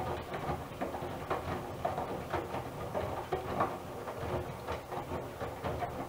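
Miele W1 front-loading washing machine tumbling wet laundry in its drum during the wash phase, with laundry flopping and water sloshing in a loose rhythm over a steady motor hum. The drum stops right at the end.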